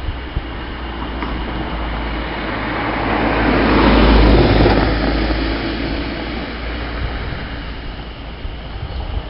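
A vehicle driving past on the road, its tyre and engine noise swelling to a peak about four seconds in and fading away, over a steady low rumble.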